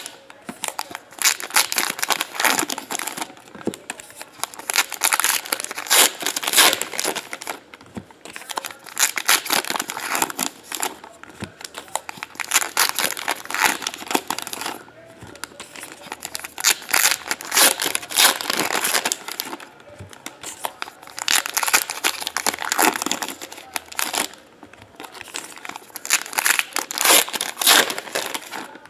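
Baseball card pack wrappers being torn open and crinkled by hand, in repeated bouts every few seconds.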